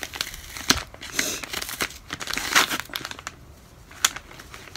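Soft plastic baby-wipe packet crinkling and rustling as it is handled and pulled open, with a couple of sharp clicks, about a second in and again near the end.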